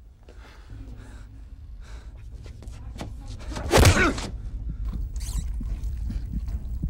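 Film fight sound effects: a low rumble underneath, a loud, sharp cry about four seconds in, then a run of quick low thuds.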